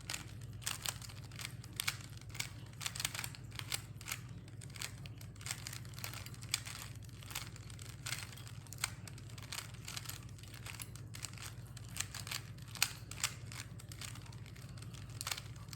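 Plastic 3x3 Rubik's Cube being scrambled by hand: its layers are twisted quickly over and over, giving a rapid, irregular run of clicks and clacks, several a second.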